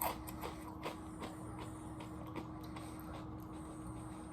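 Faint, irregular crunches of someone chewing a honey barbecue potato chip with dip, over a steady low hum.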